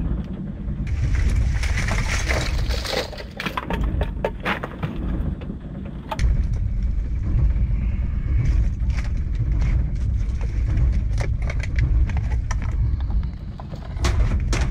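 A steady low rumble on a fishing boat's deck, with many sharp clicks and rattles of crabs, shells and debris from the net being handled and sorted by hand.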